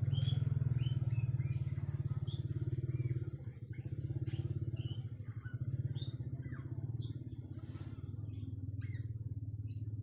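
A small engine running steadily at idle, a low pulsing hum, with short high-pitched chirps scattered over it.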